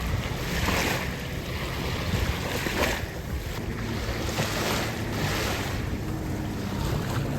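Small sea waves washing onto a sandy beach in repeated surges of hiss, with wind rumbling on the microphone.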